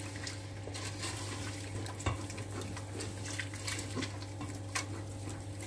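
Wooden spoon stirring a stiff roux and milk in a stainless steel saucepan, knocking and scraping against the pan in short irregular clicks, over a steady low hum.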